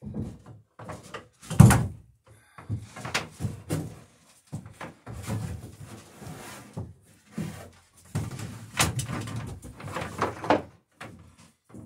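Irregular wooden knocks, thuds and clatter as lumber and tools are handled on a wooden boat hull, with one loud thump about two seconds in.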